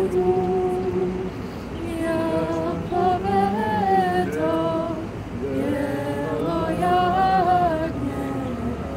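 A woman singing unaccompanied: a slow melody of long held notes in about three phrases, with short breaths between.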